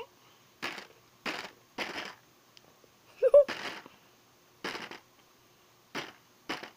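A series of short rustling, rattling bursts, about seven in all, from handling the candy and its packaging as Whoppers are laid out one by one. A brief squeak, probably a child's voice, comes with the loudest burst about three seconds in.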